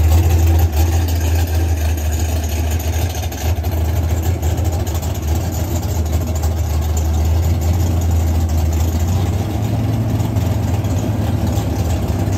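Chevy II Nova drag car's engine idling with a steady deep rumble as the car creeps along after its burnout.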